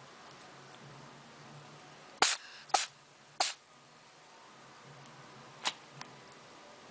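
An animal sneezing three times in quick succession, sharp short bursts about half a second apart, followed by two fainter short sounds near the end.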